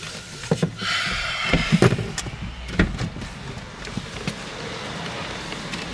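A run of clicks and knocks from handling at a car's open driver's door, with a short rushing hiss about a second in.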